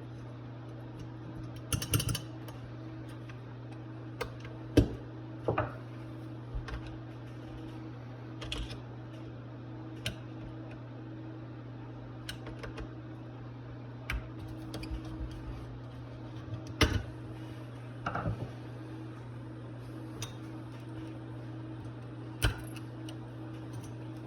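Metal carburetor parts and hand tools clicking and clinking at irregular intervals as a Rochester 2GC two-barrel carburetor is taken apart, over a steady low hum.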